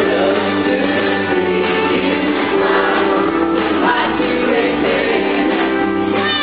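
Live country music: a male singer singing into a handheld microphone over a full band, recorded from the audience.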